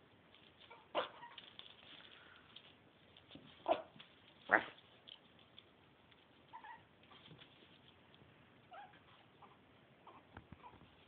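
Puppies yipping: three short sharp yips in the first five seconds, the last the loudest, then a few faint squeaky whimpers.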